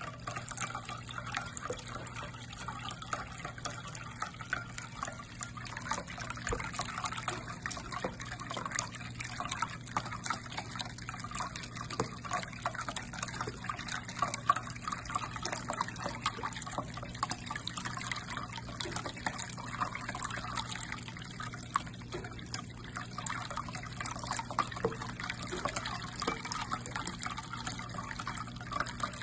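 Water trickling in a ceramic pet water fountain over a steady low pump hum, while a cat laps water from it.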